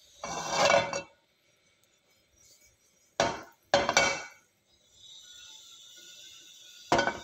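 Several short clinks and knocks of a utensil or pan against a nonstick frying pan on the stove. From about five seconds in there is a faint, steady high sizzle of hot oil with mustard seeds.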